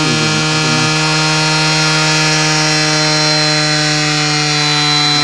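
Suzuki Max 100 R's two-stroke single-cylinder engine idling with an even, unchanging note while its carburettor mixture is tuned, with the idle screw loosened.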